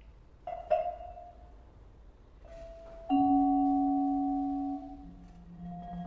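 Solo vibraphone played with mallets: a few sparse struck notes that ring on. A sharp strike comes about a second in, then a loud note near the middle rings for over a second before being damped, and a lower note follows near the end.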